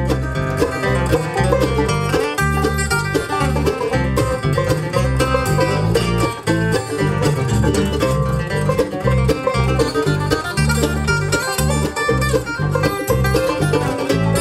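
Live bluegrass band playing an instrumental passage on banjo, mandolin, acoustic guitar and bass, with a steady pulse of bass notes under fast picked strings.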